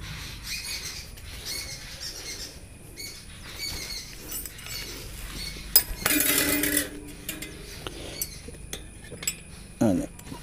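Motorcycle tyre and inner tube being worked onto a spoked rim by hand: small clinks and rattles of the metal rim and spokes. About six seconds in there is a louder scrape lasting under a second.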